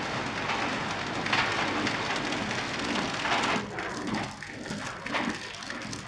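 Green plastic pipe fittings clattering against each other and the stainless steel infeed conveyor of a flow wrapping machine as they are handled, a dense rain-like patter with louder surges about every two seconds, thinning to sparser clicks about halfway through.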